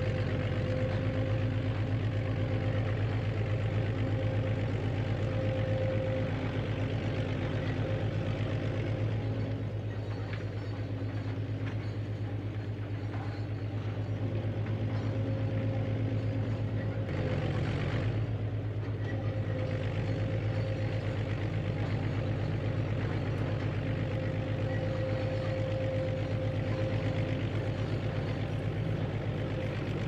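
A recorded heavy-engine sound effect, mixed from BBC sound-effect clips, plays steadily from the model backhoe's DFPlayer mini sound module as the excavator works. A low engine hum runs throughout, with a higher tone that comes and goes over it.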